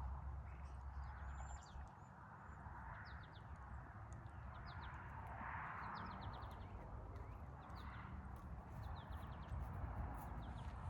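A bird chirping in quick runs of short high notes, repeated many times, over a rough background noise that swells and fades every couple of seconds.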